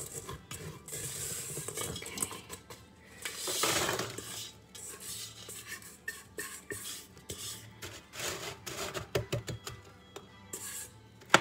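Spatula scraping and stirring sugar-coated pecans against a stainless steel pot, with the nuts rattling and clattering as the pot is tipped out. There is a louder rush of rattling a few seconds in and one sharp knock near the end.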